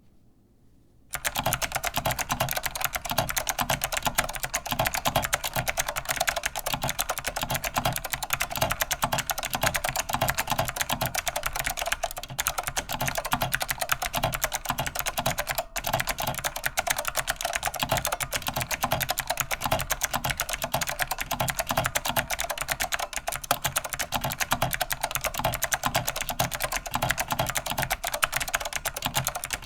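Continuous fast typing on a vintage keyboard with Alps SKCM Blue clicky switches. The keystrokes are dense clicks with a metal-backplate clack, starting about a second in and pausing briefly twice.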